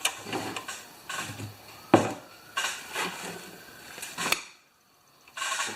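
Parts of a lawn mower's recoil starter being handled and turned over: rattling and small clicks, with two sharp knocks, about two seconds in and again about four seconds in.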